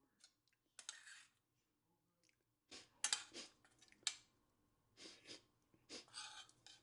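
Serving utensil scraping and clinking while sauerkraut and sausage are dished onto a plate, in several short bursts with brief quiet between.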